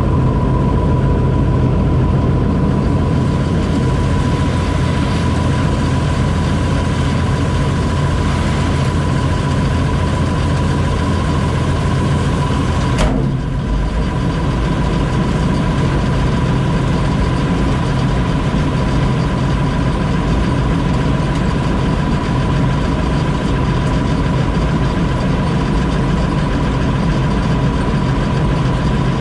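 Combine harvester running steadily, its engine and machinery a constant drone with a thin steady high tone over it. About 13 seconds in there is a brief click and the deepest hum drops slightly.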